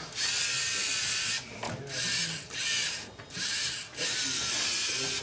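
LEGO Mindstorms NXT robot's geared servo motors whirring in about five separate runs, the first the longest, as the robot turns and realigns itself against the maze walls at a cell.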